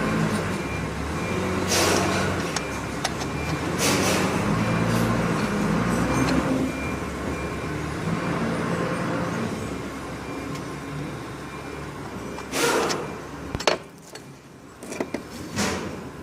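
Audi A4 (8E) engine running with abnormal noise from its accessory-belt idler pulley, whose bearing is failing, with several brief rushing surges over the steady running sound. The running sound drops away about three-quarters of the way through, followed by a few sharp clicks.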